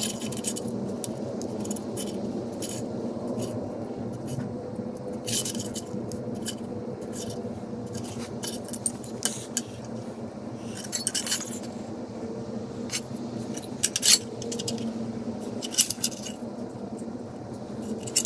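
Scattered light metallic clinks and taps as a marker, a small steel rule and a curved steel bracket are handled on a steel plate, over a steady low hum.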